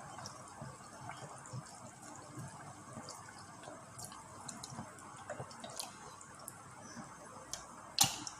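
Faint scattered drips and small clicks over a low steady hiss, with one sharper knock near the end.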